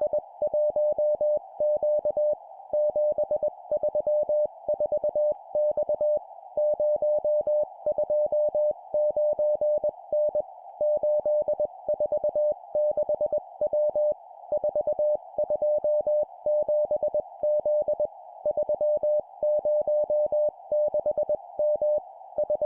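Morse code (CW) sent at 20 words per minute as a single keyed beep tone, in four-character groups of three numbers and a letter, with short pauses between groups. A narrow band of steady hiss sits under the tone, like the noise of a CW receiver.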